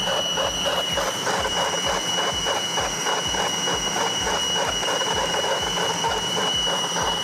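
Food processor motor running steadily while it mixes crumbly pastry dough, with a regular low thump about three times a second.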